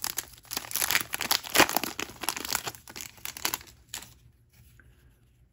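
Wrapper of a trading card pack being torn open and crinkled by hand, a dense run of sharp crackles that stops about four seconds in.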